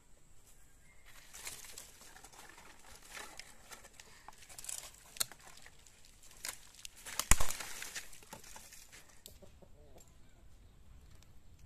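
Dry branches and sticks cracking and rustling as they are pulled and snapped off a pile of dead wood for firewood, with one loud sharp snap a little past the middle.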